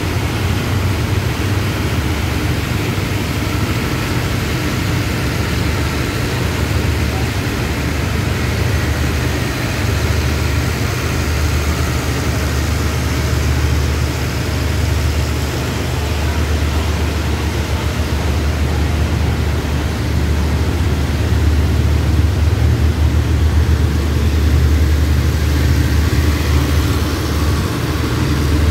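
Steady low diesel engine drone of a passenger train at a station platform, growing somewhat louder in the second half.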